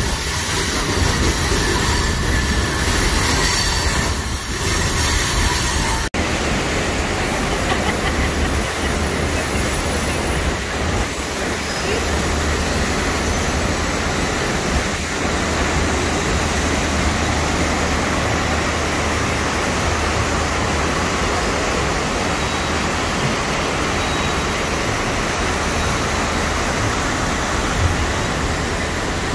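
Passenger train running on the rails: a steady rumble of wheels and rail noise over a low hum, with a brief dropout about six seconds in.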